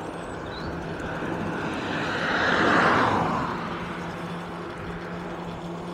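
A vehicle passing on the road alongside: its noise swells to a peak about three seconds in, dropping in pitch as it goes by, then fades. A steady low hum runs underneath.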